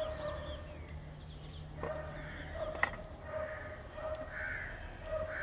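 Crows cawing over and over, short calls repeating every second or so, with one sharp click a little before three seconds in.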